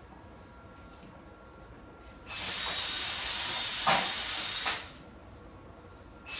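Electric arc welding on steel square tubing: one weld of about two and a half seconds, a steady hiss that starts and stops abruptly, then another weld striking near the end.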